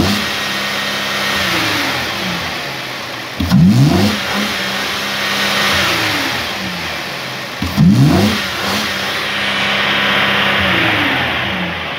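Opel Z32SE 3.2-litre 24-valve V6 petrol engine being revved: three throttle blips, at the start, about 3.5 s in and about 8 s in, each climbing quickly in pitch and then sinking back slowly toward idle.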